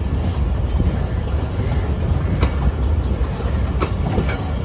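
Passenger coaches of a departing train rolling past with a steady low rumble, with a few sharp clicks of the wheels over the rail joints.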